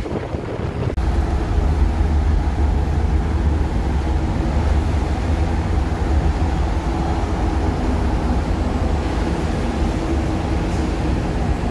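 Steady low rumble and hum of a car ferry's engines and onboard machinery. The rumble grows stronger about a second in and then holds level.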